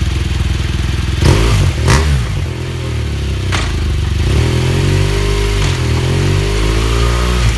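BMW R1200GS boxer-twin engine through an Akrapovic exhaust, idling and then blipped sharply three times in the first few seconds, before running at slightly raised revs that rise and fall gently.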